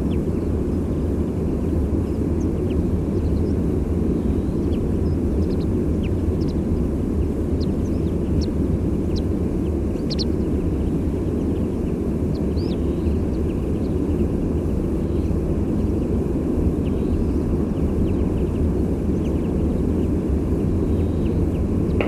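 Steady low roar of distant sea surf under scattered short, high flight calls of small migrating songbirds such as chaffinches, greenfinches, white wagtails and meadow pipits. The calls come mostly in the first half.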